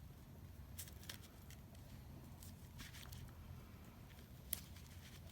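Faint rustling and light clicks of paper pieces being handled and pressed down with glue, with one sharper click about four and a half seconds in.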